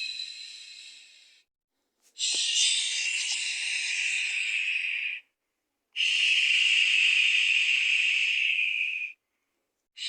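Recorded shushing, long 'shh' sounds meant as a soothing sound, each about three seconds with short silent gaps between. One fades out in the first second, two full ones follow, and another begins near the end.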